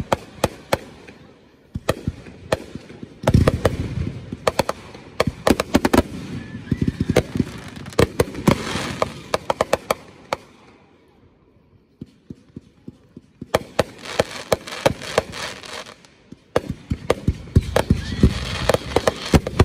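Aerial fireworks going off: a deep boom about three seconds in, then dense volleys of sharp crackling and popping. The crackling dies down to a lull near the middle, then more volleys of crackles follow.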